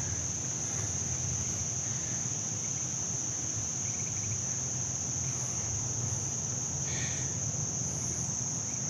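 Steady, high-pitched insect chorus, a continuous trill that does not change, over a low steady rumble, with a few faint short chirps.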